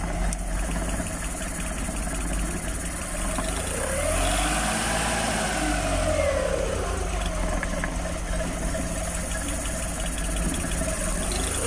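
Suzuki F6A three-cylinder engine idling unevenly, its speed swelling up and sinking back once near the middle. The hunting idle is laid by the mechanic to a torn, holed diaphragm.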